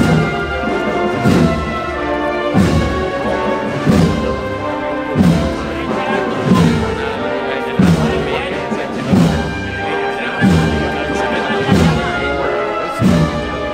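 Processional brass band playing a slow march: sustained brass chords over a low bass drum struck at an even, slow pace, about once every second and a third.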